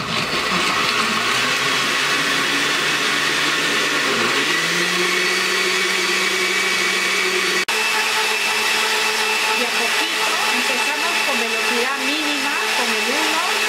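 Electric countertop blender with a glass jar running, puréeing canned peaches in syrup with sparkling wine, started on its lowest speed. Its motor cuts out for an instant about eight seconds in and runs on at a slightly different pitch.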